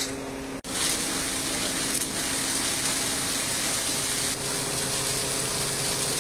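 Fire hose spraying a high-pressure jet of water: a loud, steady hiss. It starts abruptly just under a second in, cutting off a steady machine hum.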